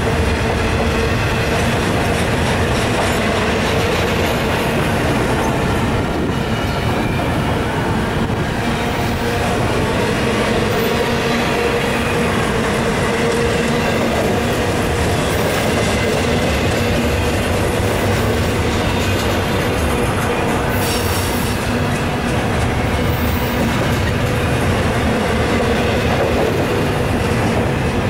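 Double-stack intermodal well cars rolling past: a steady, loud run of steel wheels on the rails, with no locomotive in the sound.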